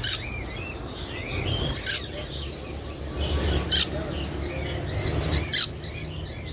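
A songbird repeating a loud, sharp, high-pitched call about every two seconds, four times, with softer warbling twitters in between.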